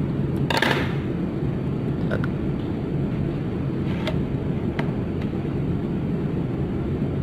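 Steady low rumble in the background, with a short rasping scrape about half a second in and a few light clicks, from cutting and stripping the jacket of a Cat 6 LAN cable with a crimping tool.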